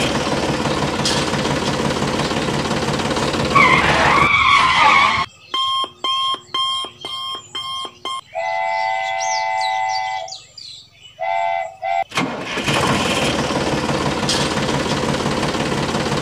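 A vehicle engine runs steadily. About five seconds in it breaks off for a run of about six short beeps and a held multi-tone horn-like sound, and the engine starts up again about twelve seconds in.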